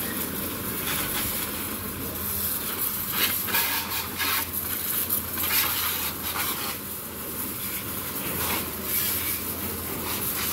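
High-pressure water jet from a hose spray nozzle blasting a motorbike and wet tiles: a steady hiss that surges again and again as the jet sweeps across surfaces, over a low steady hum.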